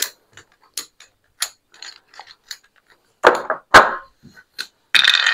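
Casino chips clicking against each other as they are gathered and stacked by hand. Scattered light clicks, then a louder clatter about three seconds in.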